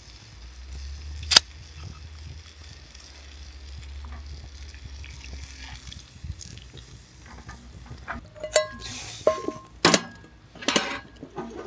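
A liquor bottle opened with one sharp click, then ringing clinks of bottle and cookware and a short hiss of sizzling near the end, as the liquor goes into the hot pan of seared chicken.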